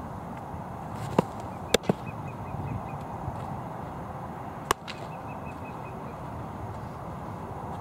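Baseball pitched into a catcher's leather mitt, a sharp pop just under two seconds in with a lighter click just before and after it; near five seconds a second leather pop as the ball is caught on the return throw. Outdoor background hiss throughout.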